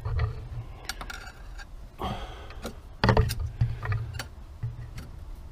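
Scattered metallic clicks and knocks of a screwdriver levering a motorcycle rear brake caliper's pistons back to open room for new pads, over a low steady hum.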